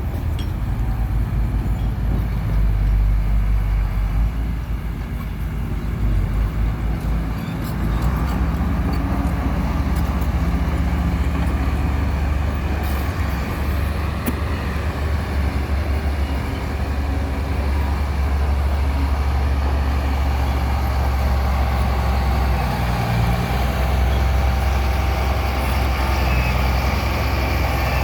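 Heavy vehicle's engine running steadily, low and continuous, shifting in tone about eight seconds in.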